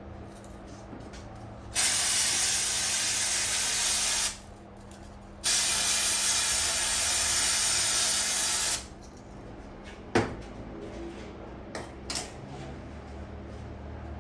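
Pressurised spray hissing in two long, steady blasts with a short pause between, during bench servicing of a removed diesel injector, followed by a few light clicks and taps.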